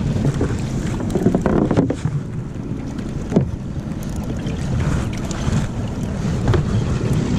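Wind buffeting the microphone and a steady low rumble aboard a small skiff, with a few short knocks and rattles as gear is handled on the fiberglass deck.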